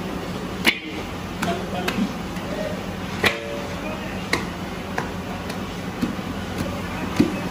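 Soan papdi mass of sugar syrup, ghee and gram flour being pulled and folded in a large steel kadai, with sharp knocks roughly once a second as it is slapped against the pan. A steady low hum runs underneath.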